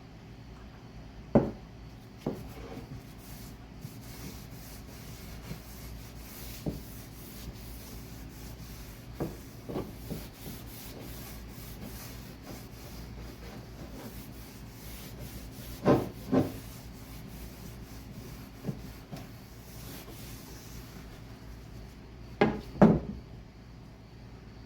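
Hand woodworking on an apple-wood adze handle: steady rubbing on the wood, broken by pairs of sharp knocks about every six to seven seconds.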